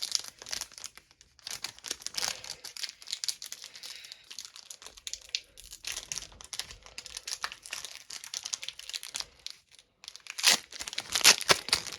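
Crinkling and tearing of an O-Pee-Chee hockey card pack wrapper being opened, a rapid run of crackles, louder near the end.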